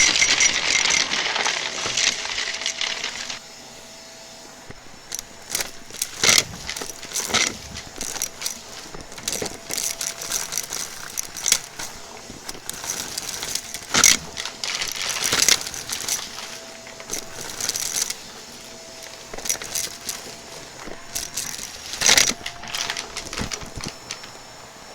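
Vacuum cleaner motor running loudly with a high whine, cutting out about three seconds in. Then irregular clicks, crackles and rattles over a faint steady hum.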